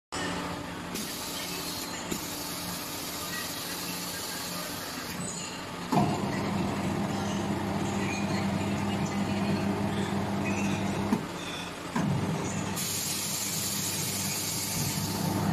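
Stainless-steel automatic durian opener machine working. About six seconds in it starts with a sudden clunk and then runs with a steady hum while it splits the durian husk. There is a short knock a little after eleven seconds and another start at about twelve seconds, with hissing in the first few seconds and again near the end.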